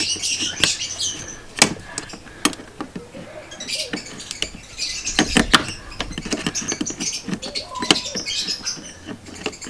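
Pliers clicking and knocking against a hose clamp and the heater valve hoses as the clamp is worked off, a scatter of sharp irregular clicks. Birds chirp in the background.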